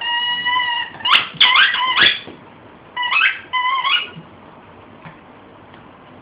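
A dog's rubber squeaky toy squeaking as a shih-tzu bites down on it: one long, steady high squeak, then two bursts of quick squeaks that rise in pitch.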